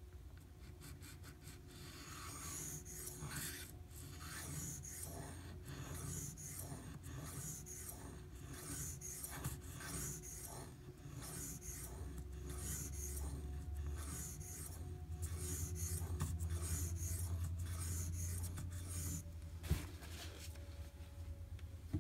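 Barlow pocketknife's 1095 carbon-steel blade drawn across a Shapton Glass whetstone in steady sharpening strokes, about one a second, each a scraping hiss. Under it runs a low hum from machinery outside, which gets louder about halfway through.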